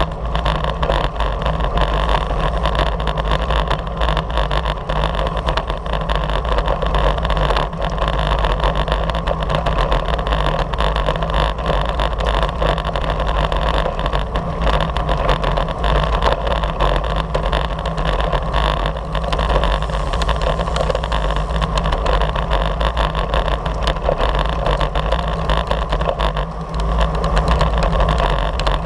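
Steady wind rushing over a bicycle-mounted camera's microphone at racing speed, with a low rumble of road-bike tyres on rough asphalt.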